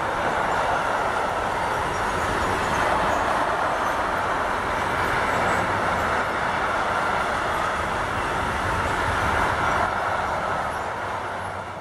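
Freight train of covered goods wagons rolling past at close range: a steady rumble of wheels on rail and wagon bodies, easing off slightly near the end.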